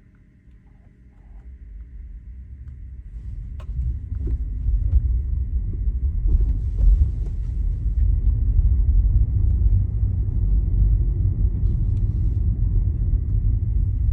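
Tesla Model Y on the move: a low rumble of road and tyre noise that builds over the first few seconds and then holds loud and steady, after a few faint ticks at the very start.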